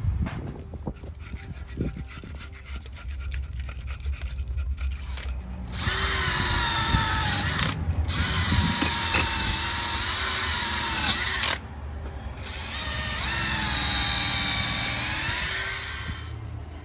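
Cordless drill spinning a wire wheel brush against the gimbal housing's gasket mating surfaces, after a few seconds of light scratching and clicking. There are two long runs, starting about six and twelve seconds in, with the motor's whine dipping and rising as the brush bears down on the metal.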